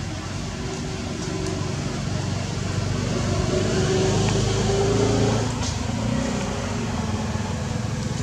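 A motor engine running steadily, growing louder for a few seconds and then easing off.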